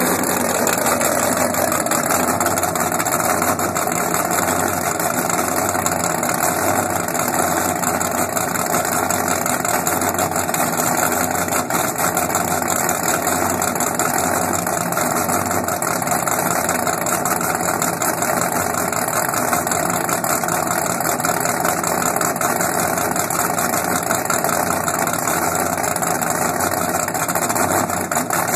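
Twin marine engines of an offshore powerboat idling through open through-transom exhaust pipes, a steady loud rumble with an even low pulse. The boat is running out of the water on its trailer, a garden hose supplying the cooling water that spits from the exhausts.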